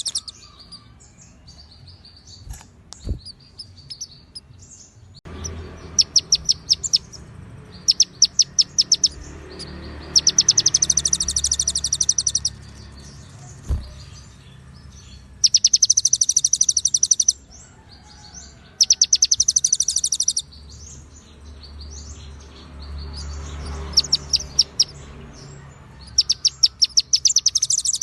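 Konin songbird singing repeated phrases of fast, high, ticking trills, each one to two seconds long, with short pauses between them. A low background rumble runs under the song, and there are two soft thuds, a few seconds in and about midway.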